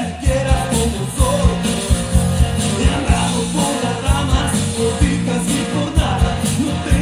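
Loud music with a steady bass beat.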